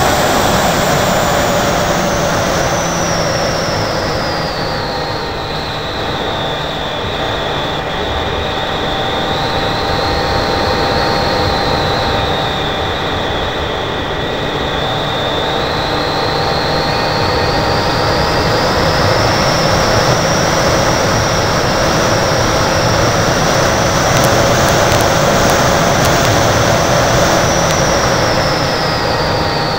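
Onboard sound of a foam RC Vulcan model in flight, heard from a keychain camera on its nose: a steady rush of wind and motor noise with a high motor whine. The whine falls in pitch over the first few seconds, wavers, climbs again past the middle and drops once more near the end as the motor speed changes.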